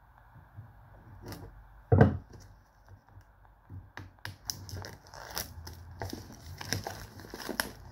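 Plastic shrink-wrap on a phone box being snipped with scissors and peeled off by hand, crinkling and tearing in a dense run of crackles from about four seconds in. A single dull knock about two seconds in.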